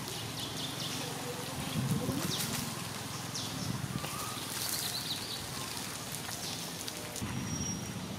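Outdoor background hiss in wet foliage, with scattered brief rustles and ticks, and a low voice-like sound about two seconds in.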